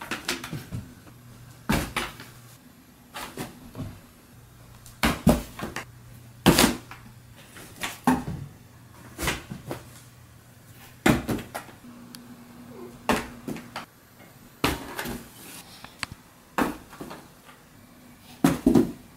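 Cardboard box thumping and scraping as cats jump into it and scramble about inside: repeated sharp knocks, one every second or two.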